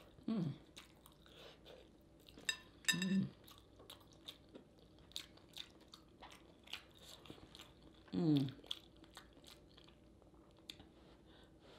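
A person eating a seafood boil in sauce close to the microphone: chewing and lip-smacking clicks scattered throughout, with short voiced hums near the start, about three seconds in, and about eight seconds in.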